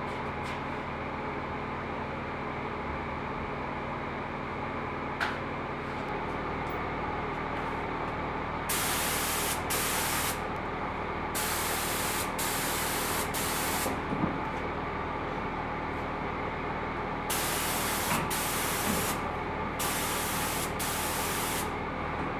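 Spray gun hissing in repeated bursts of one to three seconds, starting about nine seconds in, as the trigger is pulled and released, over a steady motor hum.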